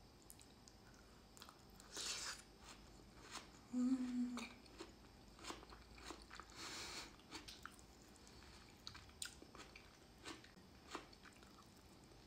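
Quiet close-up eating sounds: soft chewing, lip smacks and small wet mouth clicks as cooked onion and smoked fish are eaten, with a brief low "mm" about four seconds in.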